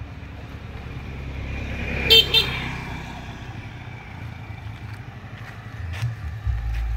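Motor vehicle passing with its engine hum building, then two quick horn toots about two seconds in. A low rumble comes in near the end.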